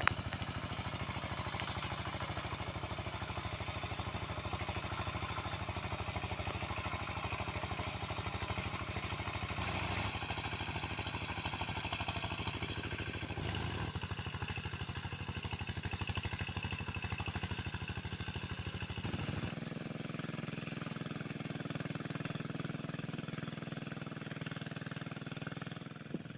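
A small engine running steadily with an even, rapid firing rhythm; the sound changes abruptly, losing its lowest part, about three-quarters of the way through.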